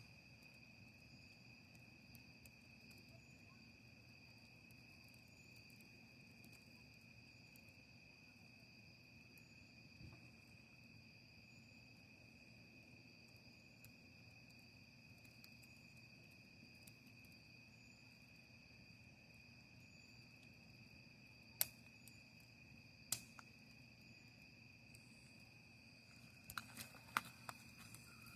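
Crickets trilling faintly and steadily in one unbroken high tone. A few sharp clicks break in about three quarters of the way through, with a short cluster of them near the end.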